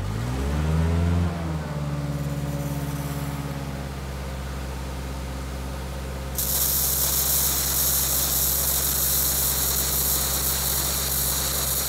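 Towable air compressor's engine catching and revving up, then settling into a steady run. From about six seconds in, a loud hiss joins it: compressed air driving water and mist out of a lawn sprinkler head as the irrigation line is blown out for winter.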